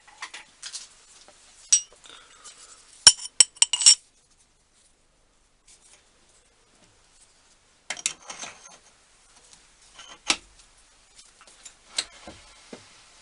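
Small metal tools and parts clinking and knocking as they are handled and set down, in clusters of sharp clicks with a pause of a few seconds in the middle.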